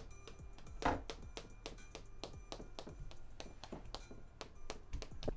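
Hand tapping and knocking on a glass-fronted framed poster: a quick run of light taps, about three or four a second, with a louder knock about a second in.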